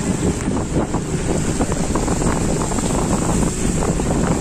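Wind buffeting the microphone: a steady low rumble broken by many short crackles.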